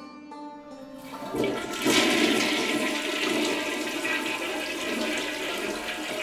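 A toilet flushing: a rush of water starts about a second in, swells quickly and keeps running steadily. The end of a harpsichord tune fades out underneath at the start.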